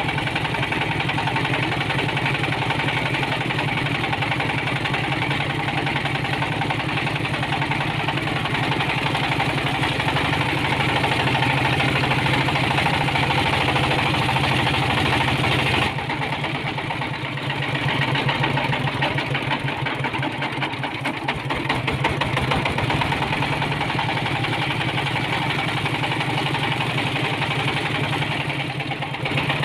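Diesel engine of a homemade ledok dump truck running steadily while the truck drives. Its sound dips and changes briefly about halfway through, and again near the end.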